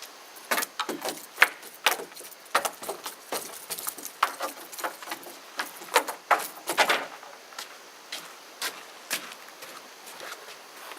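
A quick, irregular series of sharp knocks and clatters, thick for the first several seconds and then thinning out to a few scattered hits.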